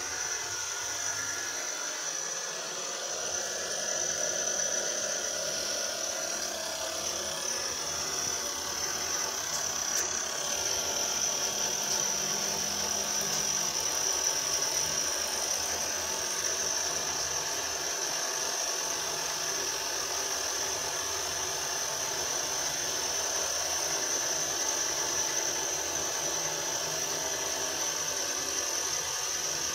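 CNC-converted benchtop milling machine cutting a metal plate with an end mill: a steady high whine over the continuous noise of the cut.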